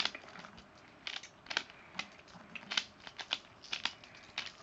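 Pyraminx puzzle being scrambled by hand: its plastic pieces click and clack irregularly as the faces are twisted, a few turns a second.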